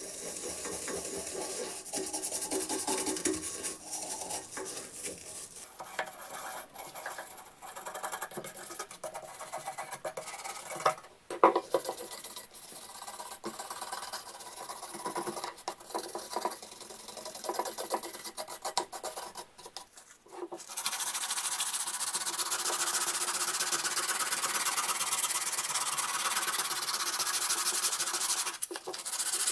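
Toothbrush scrubbing the weathered apple-wood handle of a hand saw in quick scratchy strokes, with one sharp knock partway through. About two-thirds of the way in it gives way to hand sanding of the wood with sandpaper, a steadier hiss.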